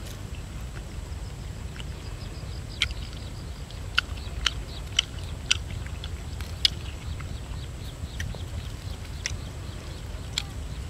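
Sharp, crisp crackles and snaps, about eight of them spread out, as charred skin and meat are torn by hand from a whole roasted chicken on a stick. A steady low wind rumble on the microphone runs underneath.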